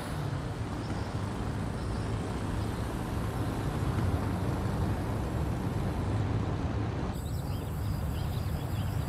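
Steady rumble of a car driving on an open highway, heard from inside the cabin. About seven seconds in the sound changes and faint high chirps join the vehicle noise.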